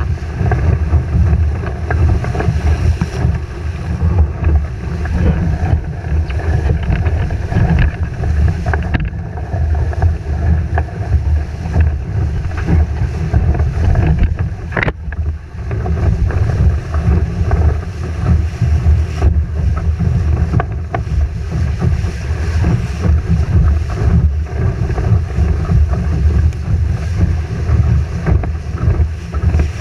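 Musto Performance Skiff sailing fast: heavy wind buffeting on the camera microphone over water rushing and splashing past the hull. A single sharp knock about halfway through.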